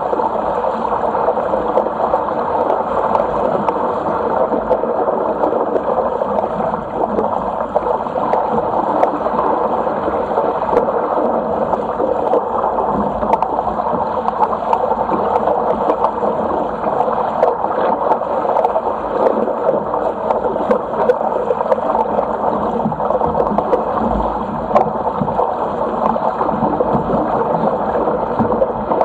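Steady rush and splash of water along the hull of a Sigma 8 metre sailing yacht driving through choppy water under sail.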